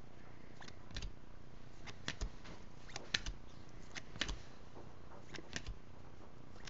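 Glossy Bowman Chrome baseball cards being flipped through by hand, each card slid off the front of the stack and onto the back, giving light, irregular clicks and scrapes of card against card.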